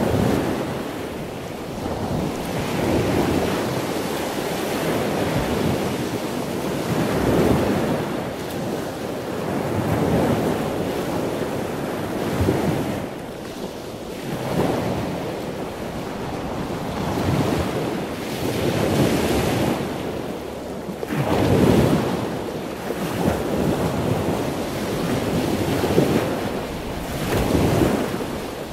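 Wind buffeting the microphone: a rushing noise that swells and fades in gusts every couple of seconds, with no engine tone heard through it.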